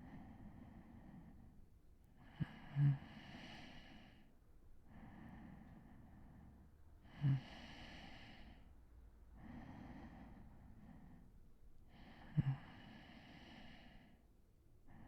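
A man breathing slowly and heavily in his sleep, each breath lasting a second or two. Three short, low snoring snorts break in, about three, seven and twelve seconds in, and are the loudest sounds.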